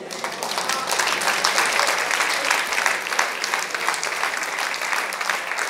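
Audience applauding: dense, fast clapping from many hands that breaks out suddenly and keeps going.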